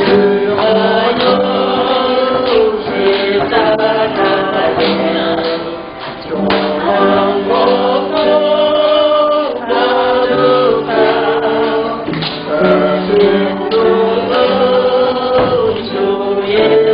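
Church choir or congregation singing a Korean hymn with instrumental accompaniment, long held notes in several voices.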